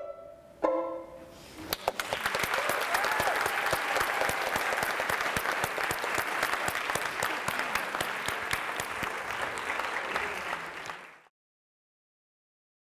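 Audience applauding: a dense patter of clapping that starts about two seconds in, runs for about nine seconds, then fades out and cuts to silence.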